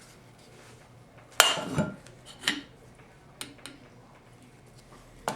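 Metal tool striking the 4L60E transmission pump body: about six sharp, irregular metallic knocks and clinks, the loudest about a second and a half in, as a part is worked out from under a lip inside the pump.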